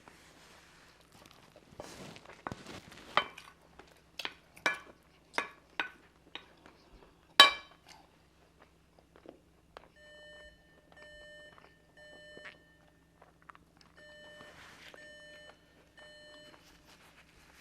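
Sharp clinks and clicks, like cutlery on plates during fast eating, the loudest about seven seconds in. From about ten seconds a timer alarm sounds in repeating groups of short beeps, marking the end of a one-minute eating round.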